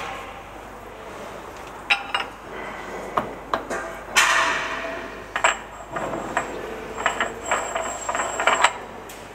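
Steel parts at a steam locomotive's coupling-rod crank pin clinking and scraping as they are handled by hand. Scattered sharp clicks are followed by a longer scrape about four seconds in, then a quick run of light, ringing metal clinks that stops shortly before the end.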